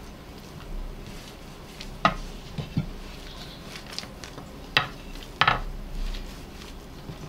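Wooden rolling pin handled over thin dough on a wooden worktop, giving a few sharp knocks of wood on wood between quieter rolling and rubbing.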